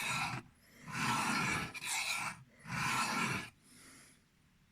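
Thin 12C27 steel knife blade drawn across a sharpening stone in slow freehand strokes: four scraping strokes of just under a second each, then a fainter, shorter one near the end.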